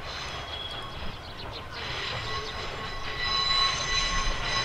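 Electric train moving on the line, with a steady high-pitched squeal from its wheels over a low running rumble; the squeal grows louder about two seconds in.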